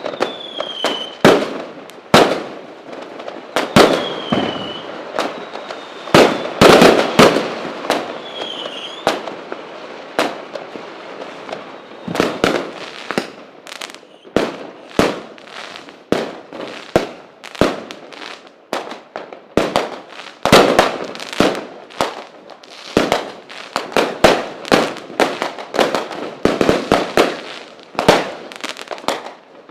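Fireworks going off: a series of sharp bangs, with a few short falling whistles in the first ten seconds, then a denser, faster run of bangs from about twelve seconds in.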